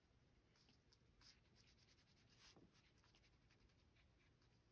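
Near silence, with faint scratches of a watercolour paintbrush stroking across paper.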